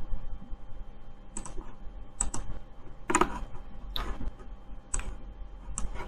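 Computer mouse clicking, about seven short sharp clicks at uneven intervals while files and dialog buttons are selected on screen.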